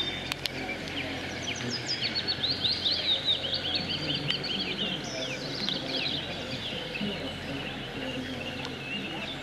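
Small birds chirping and singing, with a fast, dense run of chirps from about two to six and a half seconds in, over steady outdoor background noise.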